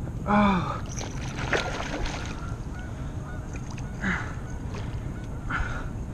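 A man's loud 'Oh!', then a run of light knocks and a few short splashing swishes as a kayak paddle and fishing rod are handled and the paddle dips into the water.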